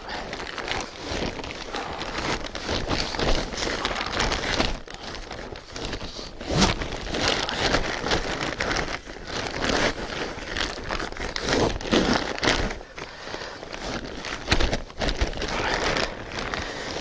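EM-treated straw being stuffed into a plastic-lined sack and tamped down with a stick: continuous rustling and crinkling of straw and plastic, broken by irregular dull knocks.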